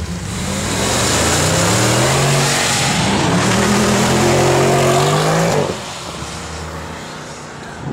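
Mercedes-Benz E63 AMG W212's V8 accelerating hard away: the exhaust note climbs in pitch, drops at an upshift about three seconds in, climbs again, then falls off suddenly near the end to a lower, quieter run as the car lifts off and moves away.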